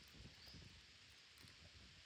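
Near silence: faint outdoor ambience, with one faint, high, short rising chirp from a bird about half a second in.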